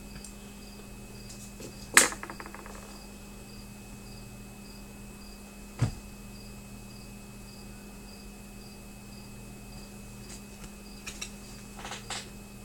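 Room tone made of a steady low electrical hum and a faint high-pitched tone pulsing at even intervals. A sharp click with a short rattle comes about two seconds in, a single knock near six seconds, and a few lighter clicks near the end.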